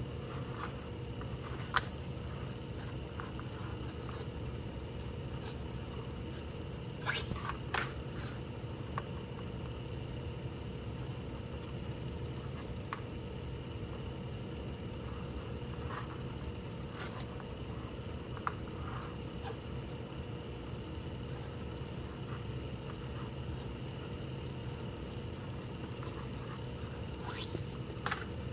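Paracord being worked by hand into cobra-weave knots: short scrapes and rustles as the cord is pulled through the loops and drawn tight, bunched about seven seconds in and again near the end, over a steady low hum.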